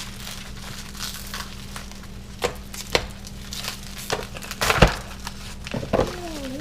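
Packing paper crinkling and rustling as it is pulled out of a box, with scattered sharp crackles and one louder knock a little under five seconds in.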